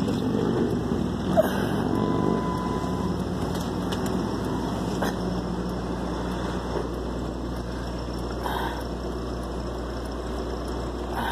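An engine idling steadily with a low, even hum. A thin electronic tone sounds for about a second and a half near the start.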